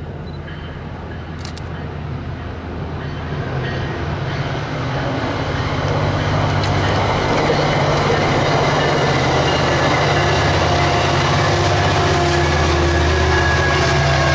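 Amtrak San Joaquins passenger train passing: the steel wheels rumble on the rails and a low diesel locomotive drone grows steadily louder. Steady engine tones come in strongly toward the end as the locomotive comes level.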